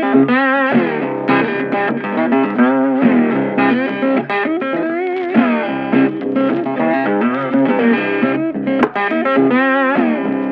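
Background music led by a guitar, its held notes wavering in pitch.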